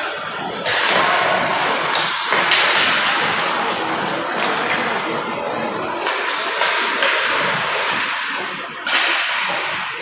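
Ice hockey play in an indoor rink: skate blades scraping and hissing on the ice, with several sharp clacks and knocks of sticks and pucks.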